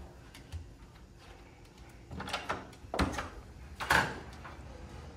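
A few knocks and clunks of room doors and fittings being handled, the loudest about three and four seconds in.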